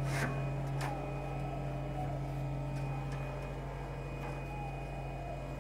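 Hydraulic CNC press brake running with its pump giving a steady hum, and a couple of light clicks within the first second as the steel sheet is handled.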